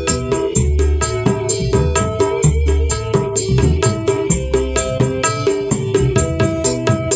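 Kendang hand drum played in quick, even rhythmic strokes along with backing music of held melodic tones and a pulsing bass.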